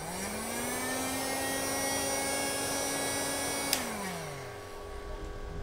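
Heat gun running to shrink heat-shrink tubing over a soldered wire joint: its fan motor spins up to a steady blowing whoosh, then is switched off with a click about three and a half seconds in and winds down.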